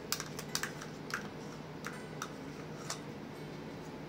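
Metal spoon scraping and tapping inside a small plastic tub while scooping out orange filling: about eight light clicks at irregular spacing.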